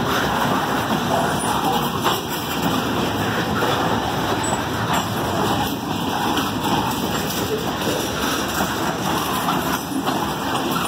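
Covered hopper cars of a freight train rolling past close by while the train is shoved in reverse: a steady rolling rumble and hiss of steel wheels on the rails, with a few faint clicks.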